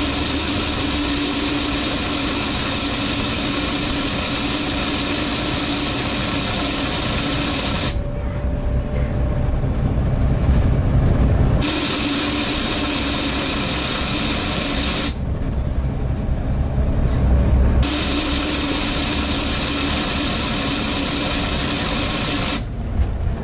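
Very loud suction noise on board a Volvo B7TL double-decker bus: a harsh hiss with a steady hum in it that runs for several seconds, stops, and comes back, three times over, while the bus rumbles along underneath. The uploader blames poor maintenance.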